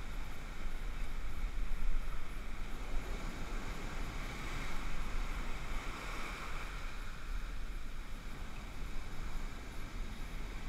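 Rough ocean surf washing and churning in the foam around the angler, with wind rumbling on the microphone. The wash swells a little about two seconds in and again around five seconds.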